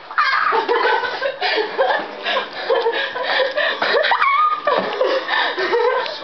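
Young women laughing and squealing, with a sharp rising squeal about four seconds in.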